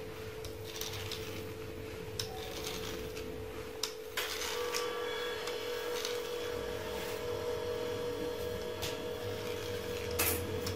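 Light scattered clicks and taps from a metal fluted pastry wheel being run across rolled-out dough and touching the stone counter, over a steady background hum.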